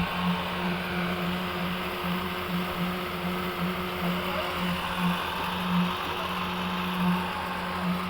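Construction machinery at a concrete pour running steadily, a constant hum with a slight pulsing throb over a wash of mechanical noise.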